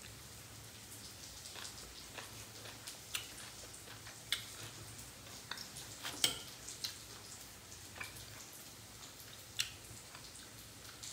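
Soft eating sounds: chewing and mouth clicks, with a fork now and then clicking against a plate. There are scattered short clicks about once a second, the loudest about six seconds in.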